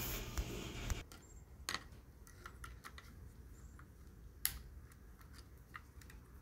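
Light, scattered clicks and taps of small parts from a washing machine's motor speed switch being handled as its contacts are removed and refitted. Two clicks, about a second and a half in and about four and a half seconds in, are sharper than the rest. A faint rushing noise cuts off suddenly about a second in.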